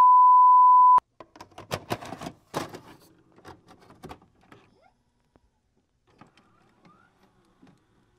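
Steady high-pitched test tone of the kind played with television colour bars, cut off suddenly about a second in. Then come a few seconds of scattered clicks and crackles that grow fainter, with a few faint ticks near the end.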